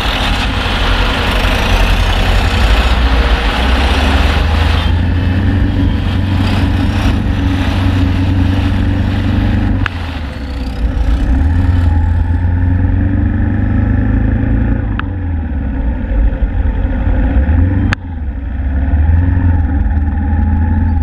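Suzuki Inazuma GW250's 248 cc parallel-twin engine idling while stopped in city traffic, then picking up revs as the bike pulls away in the second half, with other vehicles' engines around it.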